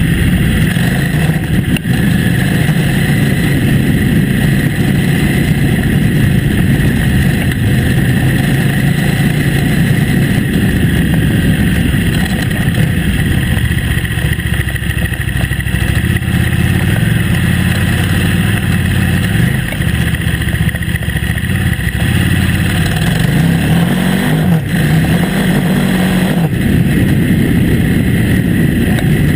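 KTM 950 Adventure S's V-twin engine pulling the bike along a dirt track at a steady pace. The engine note dips in the middle and climbs again a little past twenty seconds in as the throttle is opened.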